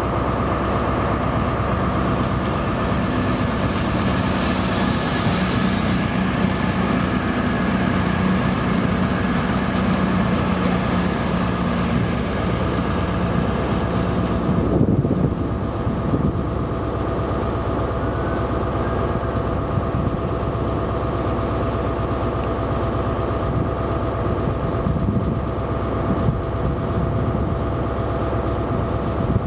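CrossCountry Class 220/221 Voyager diesel multiple units running on their underfloor diesel engines, with a steady whine throughout and a strong low engine note as the first train moves off. About halfway through the sound changes sharply to a second Voyager approaching with its engines running.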